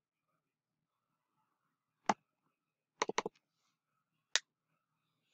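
Computer mouse clicking: a single click, a quick run of three about a second later, and one more click near the end, as files in a folder list are selected.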